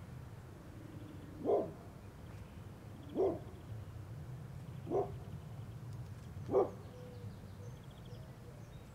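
A dog barking four times, one single bark every second and a half to two seconds, over a low steady background rumble.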